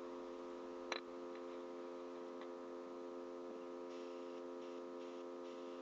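Faint steady electrical hum with one small click about a second in.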